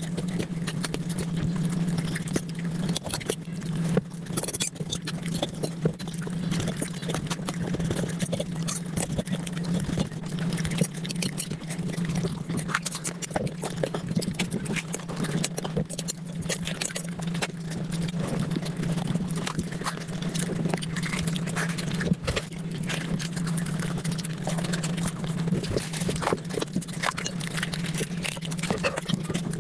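Close-miked eating sounds played back at several times normal speed: a dense, fast run of chewing, smacking and crunchy clicks. A steady low hum runs underneath.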